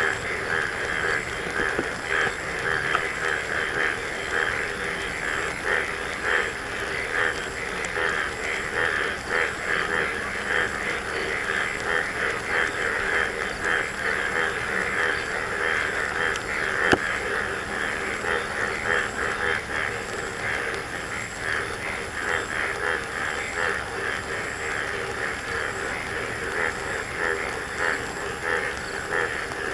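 A dense, unbroken chorus of frogs calling in the monsoon rain, a fast flickering croak with a lower note beneath it. One sharp knock stands out about halfway through.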